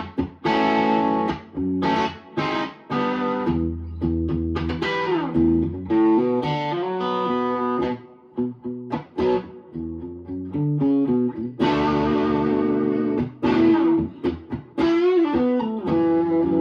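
Electric guitar played through an amp with light drive: chords struck and let ring, with short gaps between phrases and sliding notes now and then.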